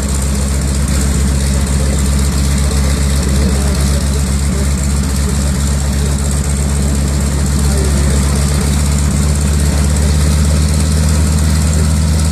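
North American T-6 Texan (Harvard) trainer's nine-cylinder Pratt & Whitney R-1340 radial engine idling steadily on the ground, propeller turning.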